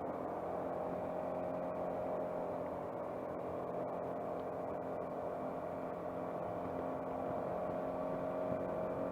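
Suzuki Burgman 200 scooter's single-cylinder engine running steadily under way, its pitch holding fairly level with a slight dip midway and a slight rise near the end.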